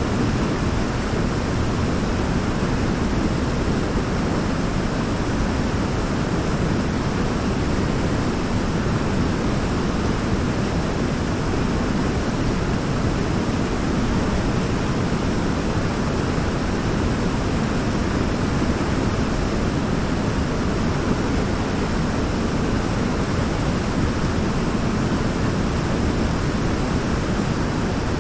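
River water pouring over a large rock in a small waterfall, a steady rushing that is fullest in the low range.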